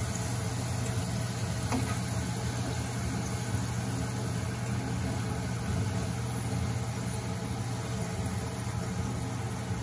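Thin strips of sweet dough deep-frying in hot oil in a pan: steady sizzling and bubbling, over a low steady hum.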